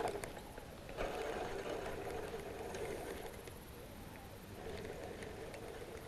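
Spinning reel cranked by hand, its gears whirring steadily as line is wound in, starting about a second in.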